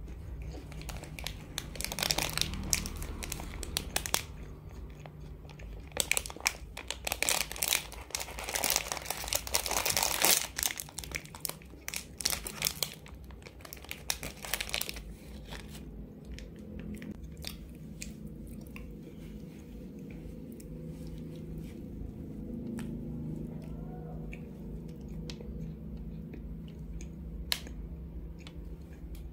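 Plastic wrapper of an Orion ChocoPie crinkling and tearing open in loud bursts through the first half. After that, softer mouth sounds of biting and chewing the chocolate-coated marshmallow cake, with scattered light clicks.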